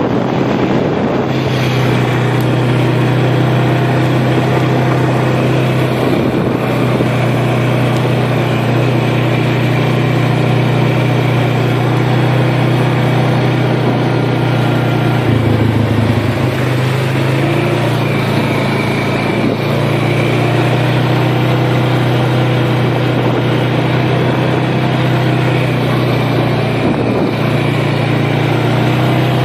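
Motor vehicle running steadily while driving, a low, even engine hum over road and wind noise. A little past halfway the engine note drops for a couple of seconds, then comes back up.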